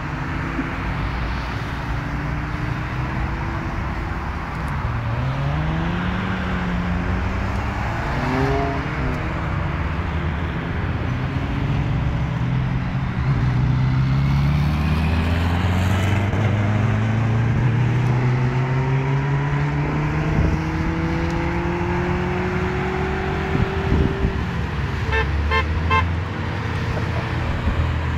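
A convoy of cars, mostly Volkswagen Sciroccos, driving past one after another, each engine rising in pitch as it accelerates away. Near the end a car horn gives a quick run of short toots.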